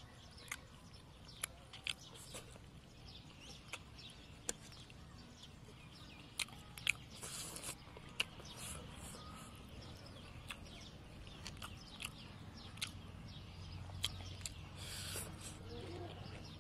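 Eating sounds: chewing crispy battered fried chicken and pineapple, with sharp clicks of a metal fork against a metal bowl scattered throughout.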